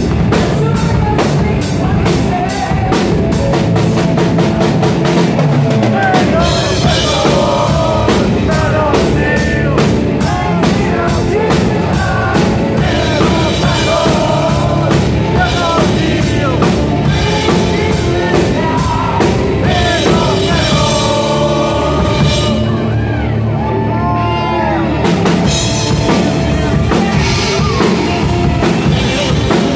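Live power metal band playing loud: distorted electric guitar and fast drumming, with a male voice singing over the band from about six seconds in until shortly before the end.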